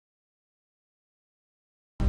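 Silence: the sound track is empty, with music cutting in only at the very end.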